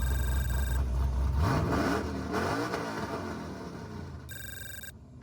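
Cammed 5.3-litre LS V8 with a BTR Stage 4 truck cam, exhausting through a Magnaflow muffler, revving: the pitch rises about a second and a half in, then the engine settles back as the level falls. A steady high tone sounds briefly at the start and again near the end.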